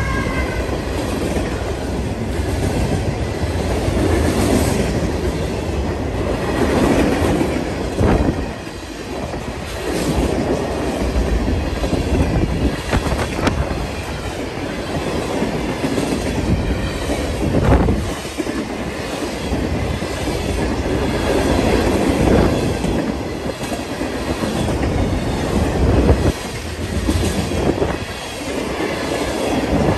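Freight train passing close by: a locomotive unit goes by at the start, then a long string of freight cars rumbles past, wheels clacking sharply over rail joints every few seconds.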